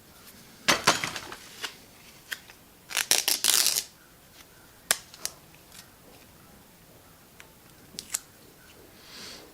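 Tape being pulled off the roll and torn: two crackly rips, one about a second in and a longer, denser one about three seconds in, then a few scattered light clicks of handling.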